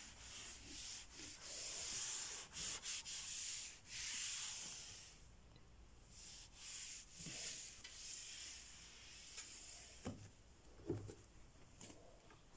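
A cloth rubbing and wiping across a desk surface in irregular strokes for about the first five seconds, then quieter with a few light knocks.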